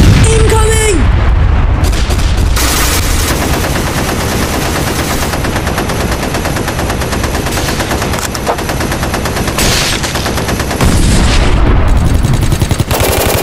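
Battle sound effects of continuous rapid automatic gunfire, machine-gun rattle mixed with single shots, with louder bursts at the start and again about eleven seconds in.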